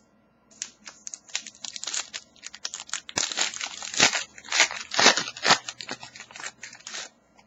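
Trading cards and their packaging being handled: a rapid run of crinkling, crackly rustles, loudest and densest around the middle, that stops just before the end.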